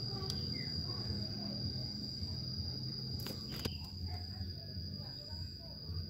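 An insect gives one steady, high-pitched continuous trill throughout. Under it there is a low rumble, and two sharp clicks come a little past halfway.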